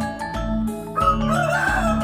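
A rooster crows once, starting about a second in and lasting over a second, over background music of mallet-percussion notes with a steady beat.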